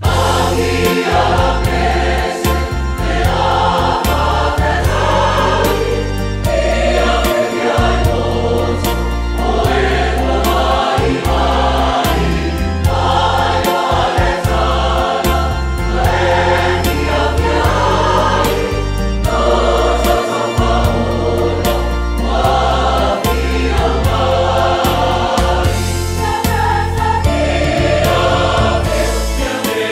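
Samoan church choir singing a hymn in harmony over a deep bass line.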